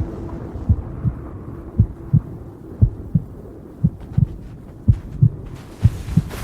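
Heartbeat sound effect: paired low thumps, about one beat a second, over a steady low drone. A hiss comes in near the end.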